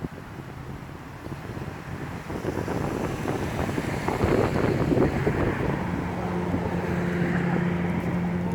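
Wind buffeting the microphone over passing road traffic, growing louder a few seconds in, with a steady vehicle engine hum in the second half.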